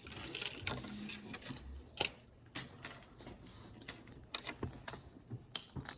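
Scattered light clicks and taps of small toy pieces being handled, busier in the first two seconds, with one sharper click about two seconds in.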